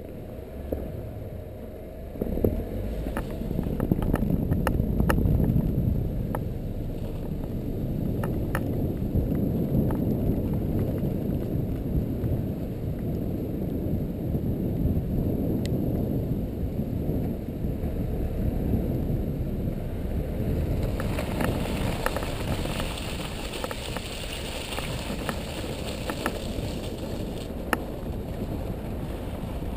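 ATV running along a snowy track, heard from the vehicle: a steady low engine-and-wind rumble with scattered light clicks and knocks. A hiss joins about two-thirds of the way through.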